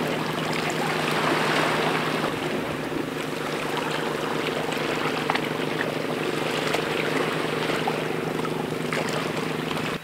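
Shallow-sea ambience: an even wash of water with a low, steady hum underneath and a few faint ticks.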